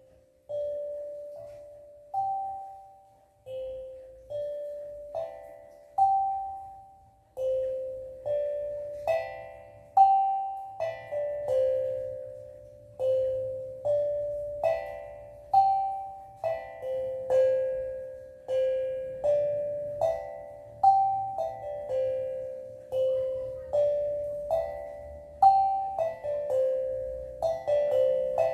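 Steel tongue drum played in slow improvisation: single struck notes ring out and fade, first about every two seconds, then closer together and overlapping from about eight seconds in.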